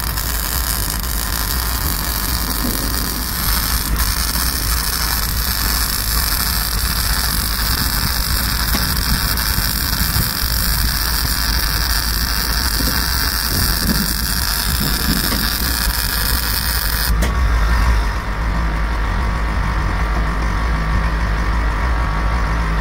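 Electric arc welding on steel: a steady hiss from the arc over a constant low hum. The top of the hiss drops away suddenly about 17 seconds in.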